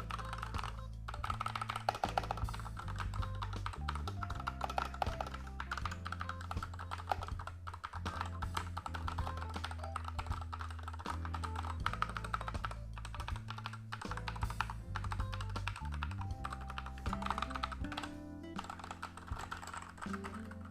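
Rapid, continuous typing on a Corsair K60 Pro TKL optical-mechanical keyboard with Corsair OPX switches, a dense run of keystroke clicks, with background music underneath.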